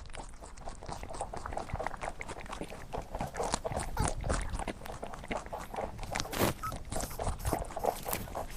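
A dog making a quick, irregular run of short noises.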